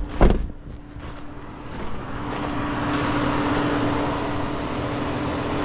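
A sharp thump right at the start, then from about two seconds in a van's engine revving and holding steady with a rising rush of noise, the wheels spinning as the van is stuck in snow.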